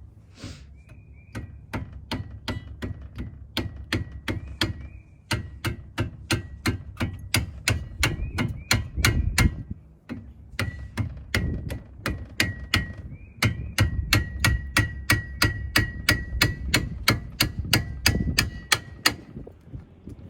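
Ratchet socket wrench clicking steadily as the brake caliper bolts are turned out, about three to four clicks a second, with two short pauses.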